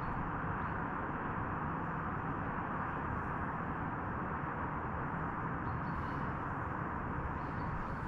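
Steady hum of distant road traffic on the A55 dual carriageway below, an even wash of tyre and engine noise with no single vehicle standing out.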